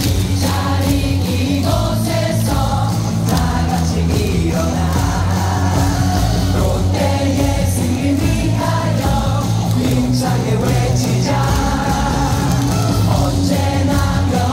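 A packed baseball-stadium crowd sings a cheer song together in unison over loud amplified music.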